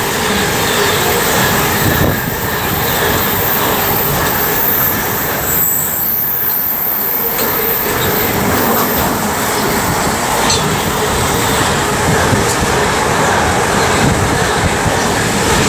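Container wagons of an intermodal freight train running past at speed: a loud, steady rumble of wheels on rail, with a thin high whine through the first two-thirds.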